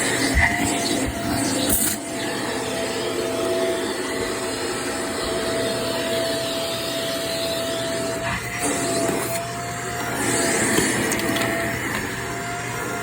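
Vacuum cleaner running steadily, its motor whine wavering slightly in pitch, with the sound shifting briefly about two seconds in and again about eight seconds in.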